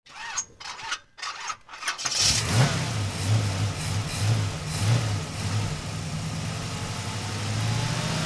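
Car engine cranking in a few short bursts, catching about two seconds in, then idling with a low, uneven throb.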